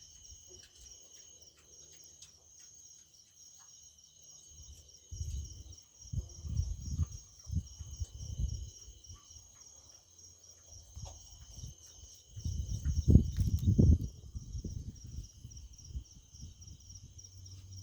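Sleeping pigs snoring: two spells of low, rumbling breaths, one starting about five seconds in and a louder one around thirteen seconds in. Insects chirr steadily throughout.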